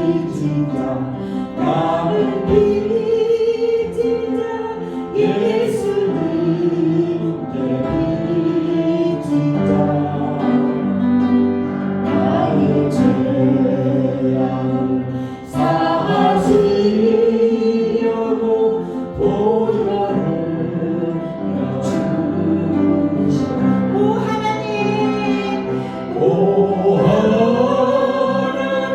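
A group singing a worship song together in long held notes over instrumental accompaniment.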